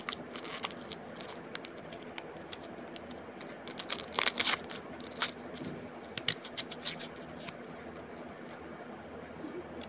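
An onion being handled and cut by hand: irregular small scrapes, tearing and clicks, with a louder cluster of scrapes about four seconds in.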